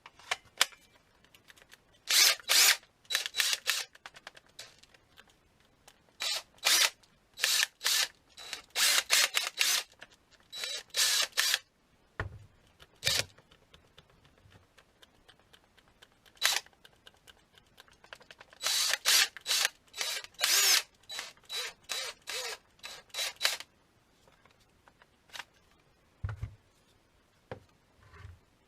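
Impact driver's motor run in many short trigger bursts of a fraction of a second each, in two clusters with quiet gaps between.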